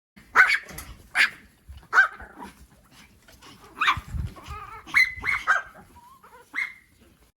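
A puppy yipping: about eight short, high-pitched yips at irregular intervals.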